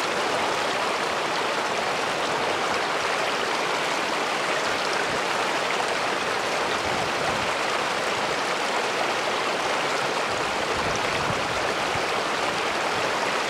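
Stream rushing steadily, an even wash of flowing water.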